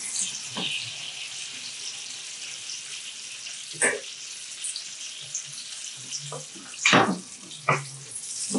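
Brill fillet frying in butter in a frying pan: a steady high sizzling hiss with small crackles. A few sharp clicks stand out, the loudest about seven seconds in.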